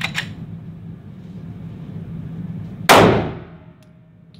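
A single pistol shot about three seconds in, sharp and loud with a long ringing decay.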